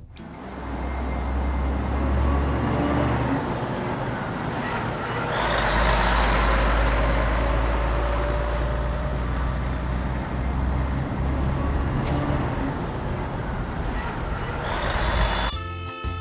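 A truck engine runs steadily with a hissing noise over it. It gets louder about five seconds in, and a brief high sweep comes about twelve seconds in.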